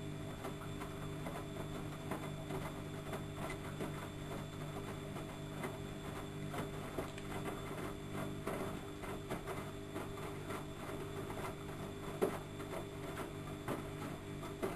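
Studio WM26AAA washing machine running: a steady motor hum with many irregular ticks and clicks.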